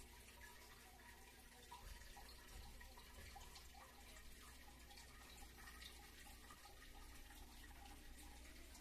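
Near silence: faint room tone with a low hum and scattered small ticks.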